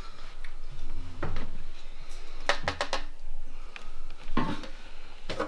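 Kitchen handling sounds: a wall cupboard opened and things picked up and set down at a counter, giving a series of separate knocks and clinks.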